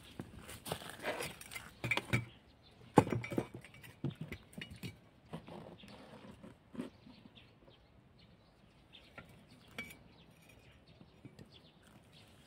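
Footsteps on a garden path with handling noise from a hand-held phone: a run of irregular clicks and knocks in the first five seconds, loudest about three seconds in, then only faint scattered ticks once the walking stops.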